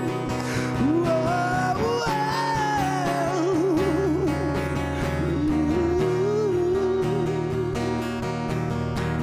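Closing bars of a Malay pop ballad: a singer's wordless, held vocal line with wide vibrato over strummed acoustic guitar and band.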